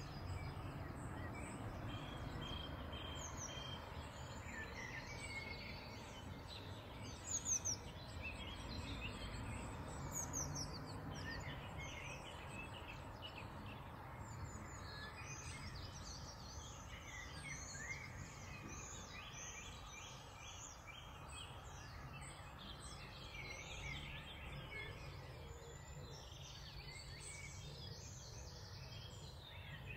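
Many songbirds singing and chirping in a morning chorus over a steady low rumble, with a brief louder burst about seven and a half seconds in.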